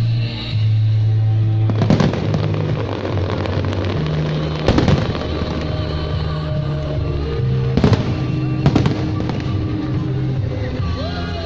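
Fireworks bursting, about four sharp bangs spaced a few seconds apart, over loud music playing for a pyromusical display.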